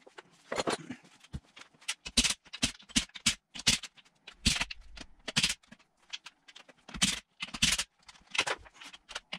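Socket wrench undoing the 14 mm bolts on the casing of a Nissan RB25 R30A manual gearbox: a string of irregular metal clicks and knocks, some in short quick runs.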